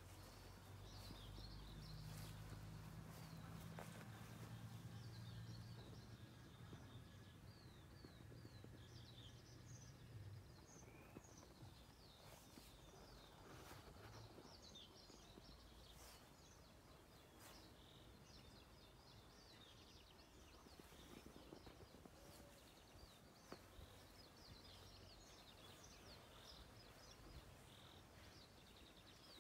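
Faint birdsong from several small birds: many short chirps and trills all through. A low steady hum sits under it for the first ten seconds or so, then fades out.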